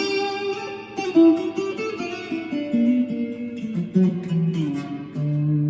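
Strat-style electric guitar played without distortion: a melodic phrase of picked single notes and short chords, each note ringing briefly before the next.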